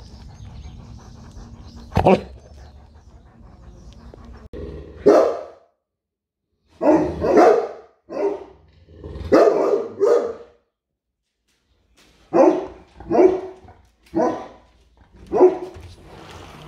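Bernese Mountain Dog giving deep, loud alarm barks at animals in the garden, about nine barks in two volleys starting about five seconds in, after a single short sharp sound near two seconds.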